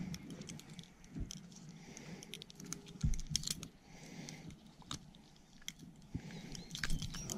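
Irregular clicks and soft handling noises as a largemouth bass is unhooked by hand, the plastic squarebill crankbait and its treble hooks clicking as they are worked free, with a dull knock about three seconds in.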